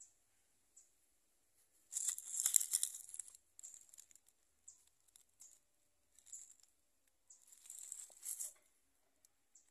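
Rustling, crinkling handling noise in two longer bouts, about two seconds in and again near seven seconds, with short crackles between.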